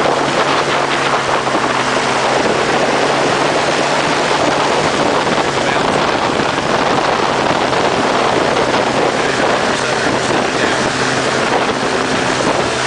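A powered parachute's engine and propeller running steadily as the craft comes in to land over a grass airstrip, with wind rushing over the microphone.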